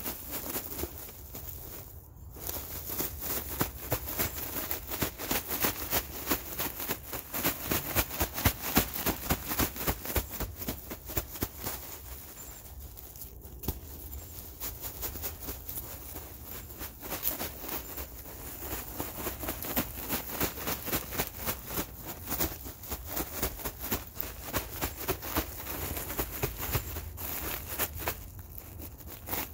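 Loose redwood sawdust mulch pattering and rustling as it streams out of a cloth bag onto a mound, a dense rapid run of tiny impacts with a couple of brief breaks.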